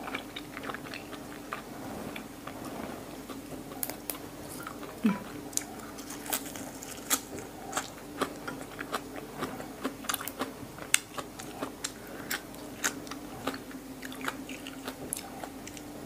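Close-up mouth sounds of someone chewing raw beef liver with fresh herbs: many short wet smacks and crunches, a few louder ones along the way, over a steady low hum.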